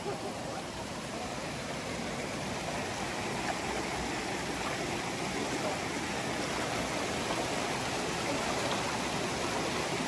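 River water running steadily, a constant even rush that swells slightly over the seconds.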